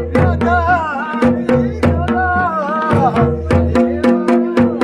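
Pahari natti folk music: drum strokes about three a second over a steady held tone and bass, with a wavering melody line coming in twice.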